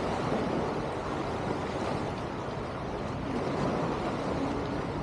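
Steady seashore noise of waves washing, with wind.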